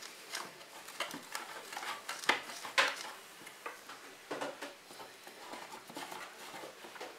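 Microfiber cloth wiping inside an opened plastic projector casing, with irregular small clicks and knocks of fingers and parts against the plastic. The loudest are two sharper knocks a bit over two and nearly three seconds in.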